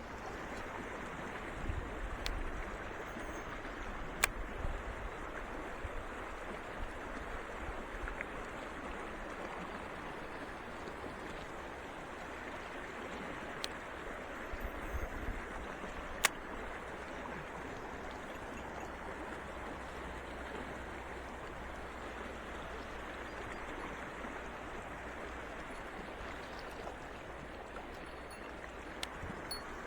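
Mountain stream rushing steadily over rocks, with a few sharp single clicks and some low rumbles.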